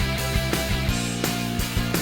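Background music with a steady beat: rock-style guitar and drums.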